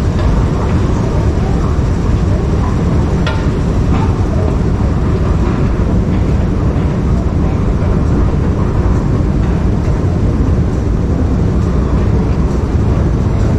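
Steady low rumbling noise, with a couple of faint clicks about three and four seconds in.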